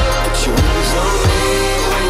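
Background pop/R&B song with a sung vocal line over a steady bass and drum beat.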